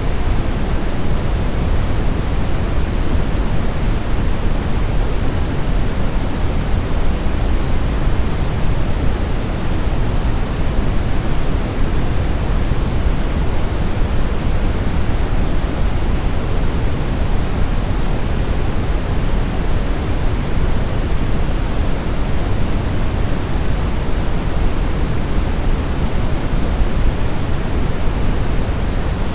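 Steady brown noise: an even, deep rumbling hiss, strongest in the low end and thinning out toward the highs, with no change in level.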